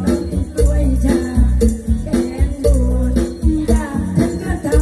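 A woman sings into a microphone over a loud amplified backing track with a heavy, pulsing bass beat, all played through stage speakers. Shaker or rattle-like percussion runs through it.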